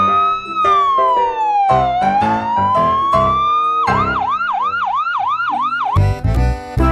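Siren sound effect over background children's music: a slow wail that rises, falls and rises again, then switches to a fast yelp of about three to four sweeps a second. Near the end the siren stops and the music carries on with a heavy beat.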